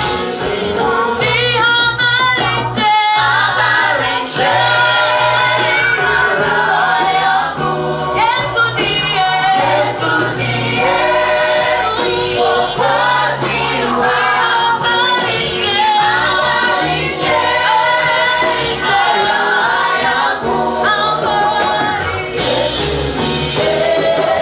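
Gospel choir singing with band accompaniment: a steady bass line under wavering sung melody lines.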